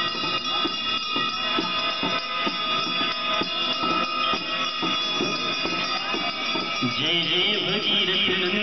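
Bells ringing steadily with the devotional music of the Ganga aarti. A singing voice and a brighter metallic shimmer come in about seven seconds in.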